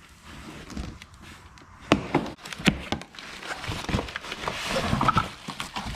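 Several sharp knocks and a rustling of packaging as air horn kit parts are handled and unpacked from their boxes.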